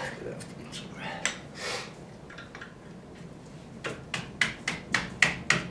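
Metal hand tool tapping and clicking on a Jeep's front brake parts: after a couple of scattered scrapes, a run of sharp, evenly spaced taps starts about four seconds in, roughly three a second, getting louder.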